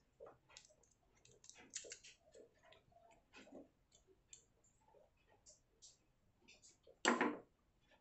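Small, quiet clicks and ticks of a screwdriver and the small metal parts of a baitcasting reel's handle knob being unscrewed and handled, with one louder brief noise near the end.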